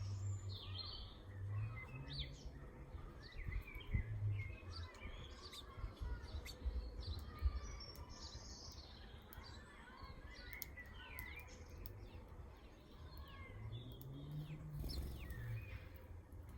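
Several small garden birds chirping and calling, short overlapping chirps and trills throughout, over a low rumble that is stronger at the start and again near the end.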